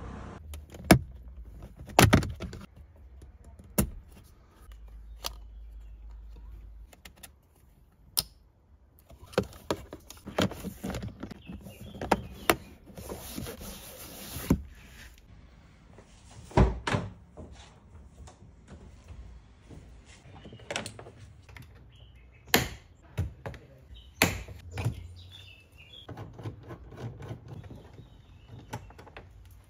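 Irregular clicks, knocks and thunks of hands working on a car's interior plastic trim, the door panel and the dashboard speaker grille, with a few sharp louder knocks scattered through it. A short stretch of hiss comes in about midway.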